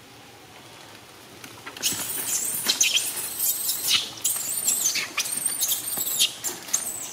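Rapid, high-pitched squeaky animal calls, many short arching and falling chirps in quick succession, starting about two seconds in and mixed with sharp clicks.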